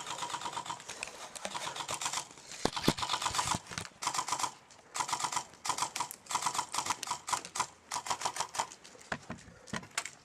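Airsoft guns firing full-auto in repeated bursts, each a rapid clatter of shots lasting about a second, with short gaps between.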